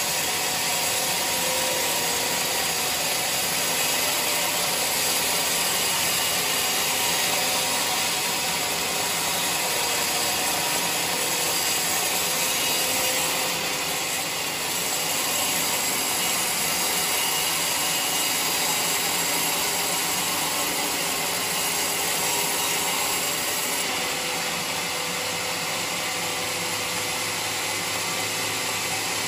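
Band sawmill running steadily, its blade sawing lengthwise through a mahogany log to cut off a slab. A continuous, even machine noise with faint steady tones, dipping slightly about halfway through.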